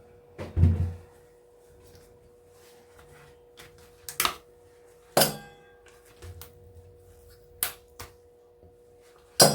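Metal clinks and clangs as brass pins are worked out of softened electrical plugs with hand tools: about six separate sharp knocks at irregular intervals, several ringing briefly, the loudest near the end.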